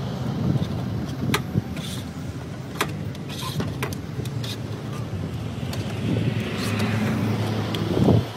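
Plastic price digits clicking and knocking as they are pulled off and slotted into a fuel-station price board, a dozen or so separate clicks, with a louder knock near the end. Under them runs a steady low rumble.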